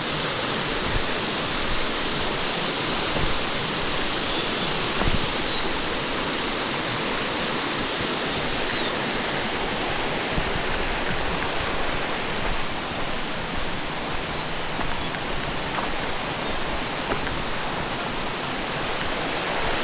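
Waterfall, its falling water rushing with a steady, even hiss.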